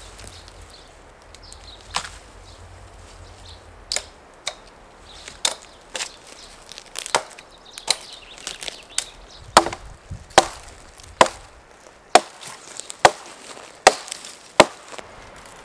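Hatchet chopping a dead branch: a series of sharp woody strikes, irregular at first, then settling into a steady stroke about every second.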